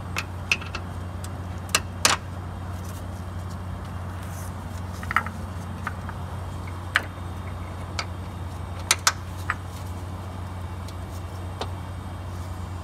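Scattered sharp metallic clicks and taps, about a dozen at uneven intervals, from hands and tools working bolts onto a car's engine mount, over a steady low hum.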